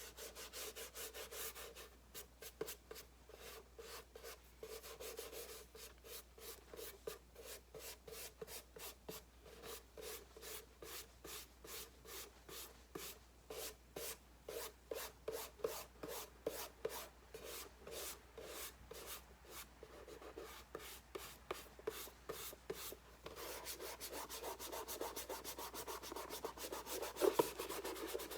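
Rhythmic hand rubbing on a Norton Commando's painted side panel, short even strokes at about two to three a second, turning into faster continuous scrubbing near the end.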